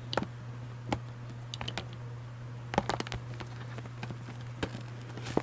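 Plastic DVD case and its shrink wrap being handled and unwrapped: irregular small crinkles and clicks, over a steady low electrical hum.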